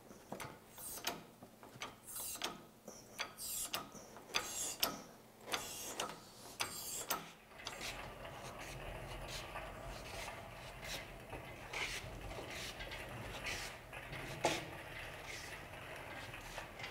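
Hydraulic engine hoist being pumped by its handle, with a pair of sharp mechanical clicks on each stroke, about one stroke a second. After about seven seconds the pumping stops and a steadier low rumble with occasional clicks follows.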